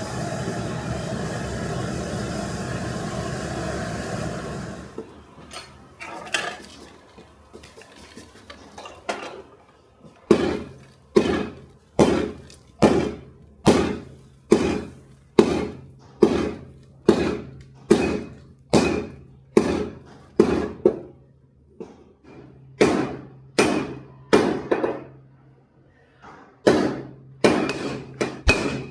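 A steady rushing noise stops about five seconds in. It gives way to hand-hammer blows on steel at an anvil, a little more than one strike a second, each with a ringing clink, and a low hum underneath.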